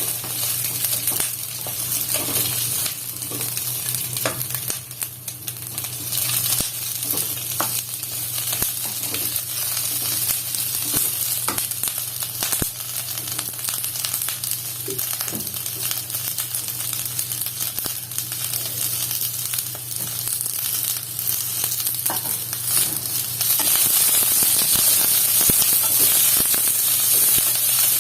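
Red chilli peppers and garlic frying in sesame oil in a kadai: a steady sizzle with scattered small crackles and clicks, growing louder near the end.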